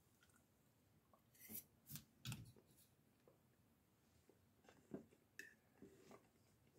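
Near silence broken by a few faint clicks and scrapes of a metal fork against a ceramic bowl, the fork set down in the bowl near the end.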